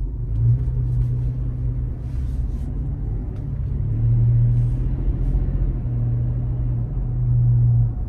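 Toyota 4Runner TRD Pro's 4.0-litre V6 through its TRD exhaust, heard inside the cabin while driving on barely any throttle: a low, steady exhaust drone that swells a few times as gas is fed in.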